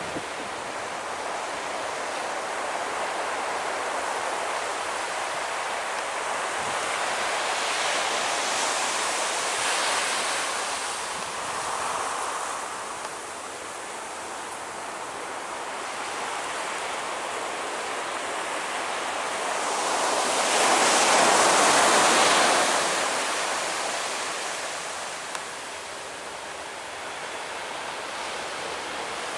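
Surf washing onto the beach with wind on the microphone: a steady rushing noise that swells twice, more strongly the second time.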